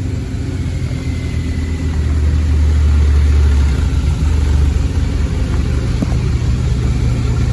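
A vehicle engine running close by, its low rumble growing louder about two seconds in and easing back a little before five seconds.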